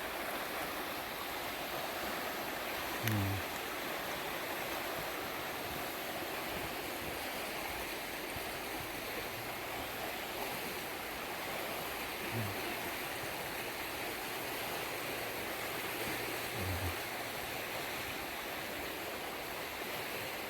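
Steady rushing of a river running high after heavy rain, with three soft low thumps about 3, 12 and 17 seconds in.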